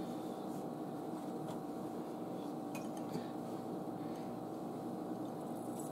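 Steady low background hum of a kitchen, with a few faint clicks.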